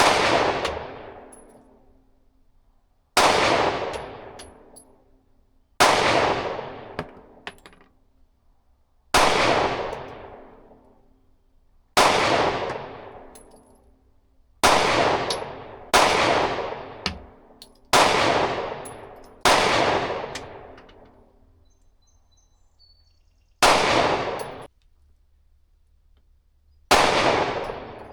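Glock 43X 9mm pistol firing single shots at an unhurried, uneven pace, about eleven in all, spaced one and a half to four seconds apart, each trailing off in a long echoing decay; the slow pace goes with a deliberate, slow trigger pull on each shot.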